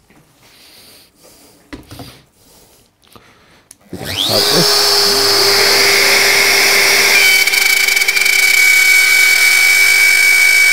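DeWalt D26204K compact plunge router, which is quiet for the first few seconds, then switches on about four seconds in. Its whine rises quickly as it spins up, then it runs steadily at full speed.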